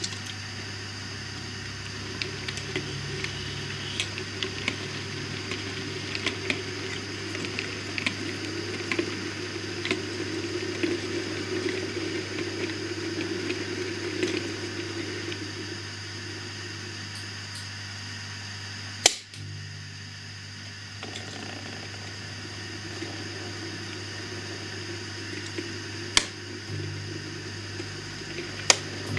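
Model railway freight train running on the layout's track: a steady rolling rumble of small wheels with light clicking over rail joints, easing off a little past halfway and picking up again near the end as more wagons pass. A few sharp clicks stand out, the loudest a little past halfway.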